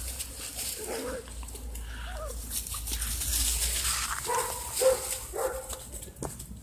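Five-week-old Great Dane puppies giving several short, high yips and whimpers, most of them bunched together in the second half.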